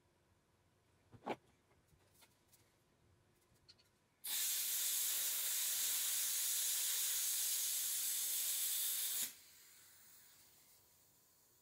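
Airsoft gas can hissing steadily for about five seconds as gas is charged into a Tokyo Marui MK23 gas pistol magazine, starting about four seconds in, then dropping to a faint fading hiss; a light click about a second in.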